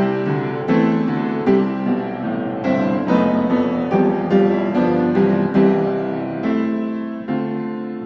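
Background piano music: a steady run of struck notes over sustained chords.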